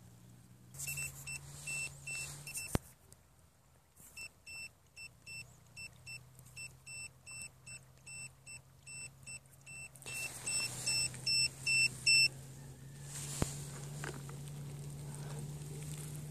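Fishing bait boat electronics beeping: a long run of short, evenly spaced high beeps, about three a second, louder for the last couple of seconds before they stop, over a steady low hum.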